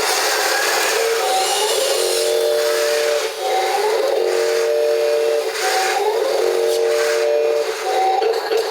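A repeating electronic warning chime over a steady hiss: a short rising note, then a longer held chord, coming round about every second and a half to two seconds.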